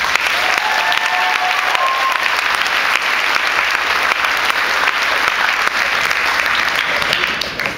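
Audience applauding steadily, with a few voices calling out about a second in; the clapping dies down near the end.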